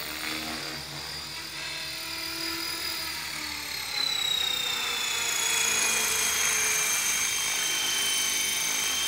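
Align T-Rex 450 electric RC helicopter flying at low rotor speed, its motor and drive whine over the rotor noise. About four seconds in it gets louder as it comes close, and the whine slides steadily lower in pitch as it descends to a low hover.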